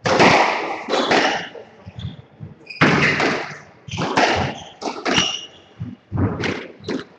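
Squash rally: the ball cracking off rackets and the court walls in sharp, echoing thuds about once a second, with brief squeaks of shoes on the wooden floor between shots.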